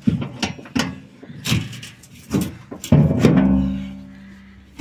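A large log being shifted about in a metal cargo bed: a run of knocks and bumps, then a heavy thud about three seconds in that leaves the metal ringing with a low hum that fades over a second or so.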